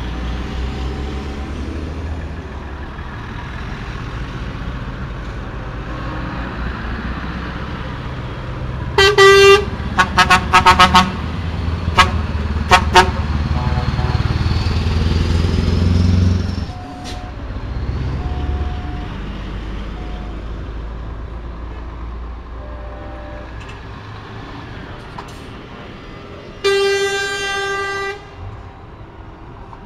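Convoy lorries passing with their diesel engines running, the rumble swelling as one goes by close. A truck horn sounds a long blast about nine seconds in, followed by several short toots, and another blast of a second or two near the end.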